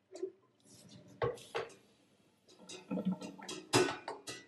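A steel saucepan clanking and knocking as it is handled and set down on a gas hob's grate: a few separate sharp knocks, then a quick cluster with the loudest knock about three quarters of the way in.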